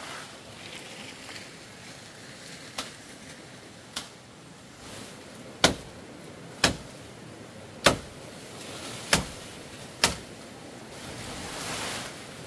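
Hand chopping of fallen branches: seven sharp strikes of a blade into wood, roughly one a second, the first two lighter and the last five harder. Leaves rustle near the end.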